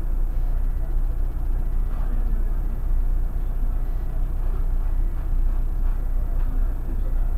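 Irisbus Crossway LE 12.8M low-entry city bus running, a steady low rumble.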